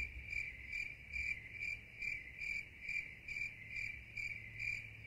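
A faint high-pitched chirp repeating evenly, about two and a half times a second, over a low steady hum.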